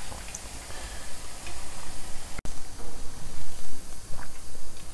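Hot oil sizzling in a kadai as deep-fried urad dal vadais are lifted out and drained with a steel slotted ladle, with a few light clicks of the ladle. The sound breaks off for an instant about halfway.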